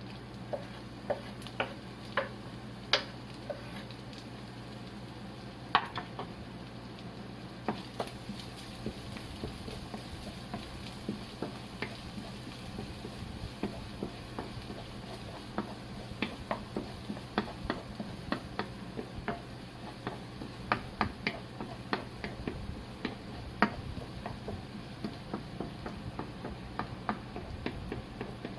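A wooden spatula taps and scrapes against a frying pan as chopped naga-negi and corn are stir-fried over a sizzle, with a steady low hum underneath. The taps are sparse at first and come quickly from about eight seconds in.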